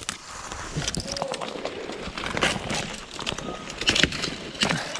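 Irregular crackling and rustling of people walking through brushy field cover, with footsteps and snapping vegetation.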